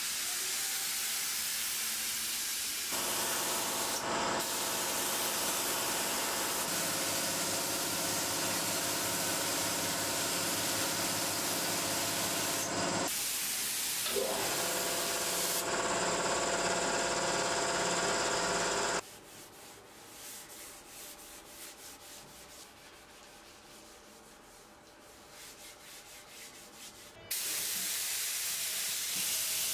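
Compressed-air gravity-feed spray gun hissing steadily as it sprays acrylic varnish onto red oak, in several abruptly cut stretches. The hiss drops low for about eight seconds past the middle, then the loud hissing returns near the end.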